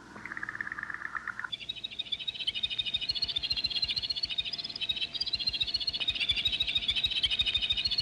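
Alien-landscape ambience sound effect: rapid pulsing trills like frog calls. A lower trill stops about a second and a half in and gives way to a denser, higher chirping chorus, with a faint steady tone beneath.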